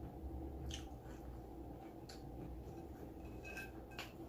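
Faint eating sounds: scattered soft clicks and crackles of chewing and handling food over a steady low room hum.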